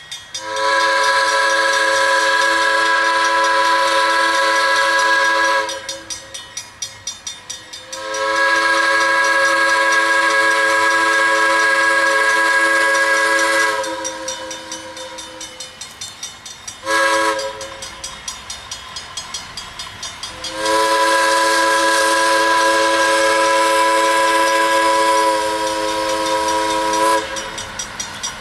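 An 80-ton diesel switcher's air whistle, the Hancock 4710 chime, sounding the grade-crossing signal: long, long, short, long. A crossing bell rings quickly and evenly between the blasts.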